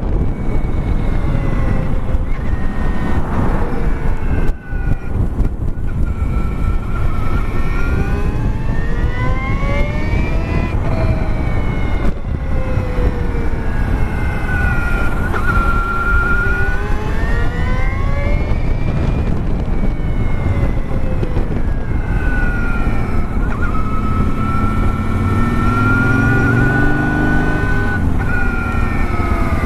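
2016 Victory Empulse TT electric motorcycle's motor whining, its pitch rising and falling several times as the bike speeds up and slows down, over steady wind and road noise.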